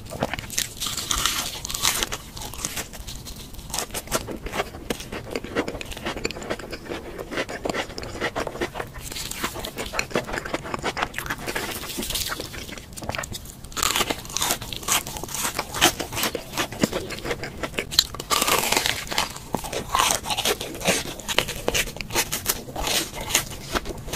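Close-miked crunching and chewing of crisp fried food coated in red crumbs: repeated bites with crackly crunches, loudest about two-thirds of the way through.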